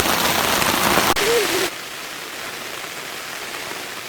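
Heavy rain falling in a steady hiss. The level drops suddenly about a second and a half in, and the rain carries on more quietly.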